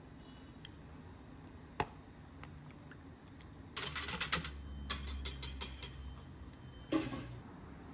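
Wire whisk beating liquid in a glass measuring jug, starting a little before halfway: a quick run of clicks as the wires knock against the glass, with one sharp tap about two seconds in.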